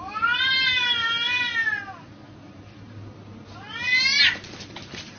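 Two cats fighting: a long wavering yowl lasting about two seconds, then a sharp rising screech about four seconds in as they clash, followed by a brief burst of scuffling noise.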